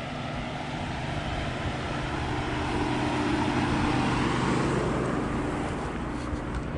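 A motor vehicle's engine running steadily under a broad rushing noise, as when driving. It grows louder around the middle and eases off toward the end.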